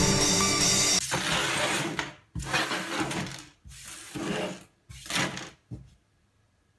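Electronic background music cuts off about a second in, followed by about four short bursts of rustling and scraping as hands handle and slide small objects on a workbench, ending with a light click.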